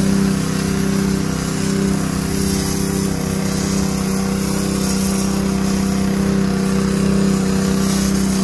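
Small engine of a sealcoat spray rig running steadily with a constant hum, while sealer hisses out of the spray wand onto the asphalt.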